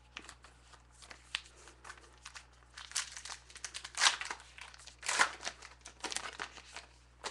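Wrapper of a 2012 Topps Gypsy Queen baseball card pack crinkling and tearing as it is pulled from the box and ripped open, in a string of sharp crackles. The loudest crackles come about four and five seconds in.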